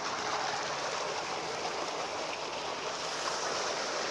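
Tubewell water gushing from an outlet pipe and splashing into a concrete tank: a steady rushing splash with no break.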